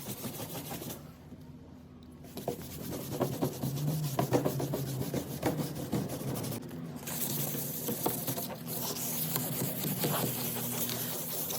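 Sanding on the wooden cupboard: irregular rubbing strokes, with a quieter break about a second in and a short one near seven seconds.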